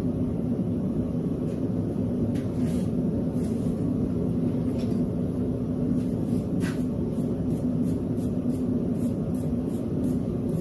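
Steady low roar of a blacksmith's forge running, with a few faint ticks and clinks over it that come more often near the end.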